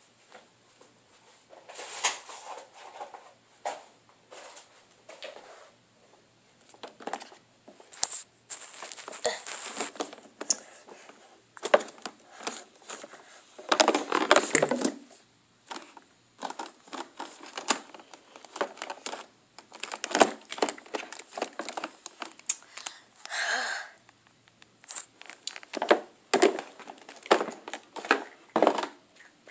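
Handling noise: irregular rustling, clicks and knocks as plastic dolls are moved about a toy car close to the microphone, with a longer, louder rustle about halfway.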